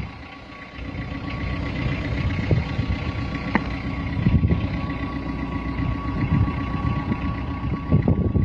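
An engine idling steadily with a low rumble.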